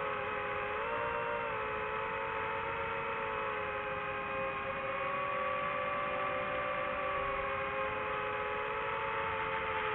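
DJI FPV drone's four motors with Gemfan Hurricane 5236 propellers, giving a steady layered whine of several tones that drift a little up and down together as the throttle changes.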